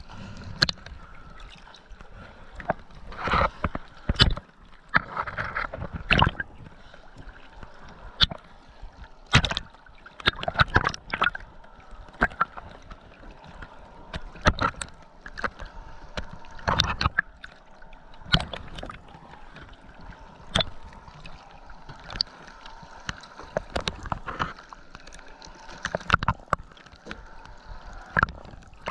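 Water sloshing and gurgling, with many irregular sharp knocks.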